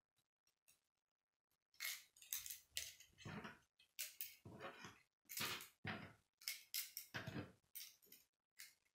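Plastic K'nex rods and connectors clicking and clattering as they are handled and snapped together by hand: a quick, irregular run of clicks starting about two seconds in.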